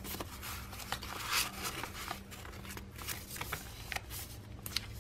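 Paper handling: stiff cards and a paper tag slid and tucked into a pocket of a handmade junk journal, then its pages turned, with irregular rustles, crinkles and small taps.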